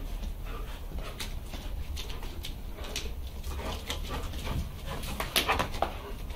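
Pit bull–type dogs playing at chasing a swung rope toy, making short excited whines and yelps that get louder about five seconds in. Quick clicks and scuffs run throughout, from their claws on the tiled floor.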